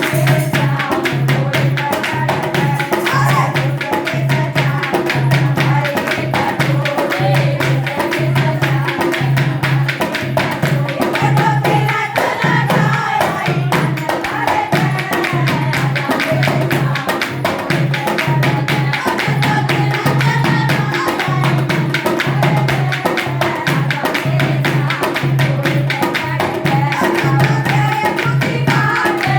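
Haryanvi devotional folk song (a Shyam bhajan) with a singing voice, driven by hand drums of the tabla or dholak kind and rapid jingling percussion, over a steady low bass pulse.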